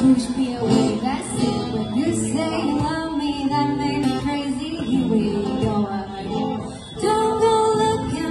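Live song performance: a woman singing into a microphone, accompanied by an upright piano and an acoustic guitar. The music eases off briefly and swells again about seven seconds in.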